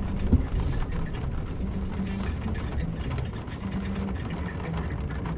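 Off-road vehicle engine running at low revs while it crawls over rough ground, with scattered knocks and rattles from the vehicle.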